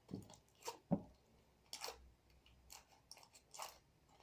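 Homemade glitter slime being kneaded and pulled by hand, giving faint, scattered sticky clicks and smacks at uneven intervals.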